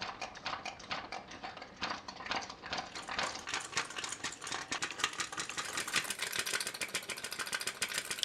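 Homemade electromagnetic single-piston engine running, its coil-driven magnet piston clattering rapidly up and down as it turns a small flywheel. The clatter gets faster and louder about three seconds in as the speed control is turned up.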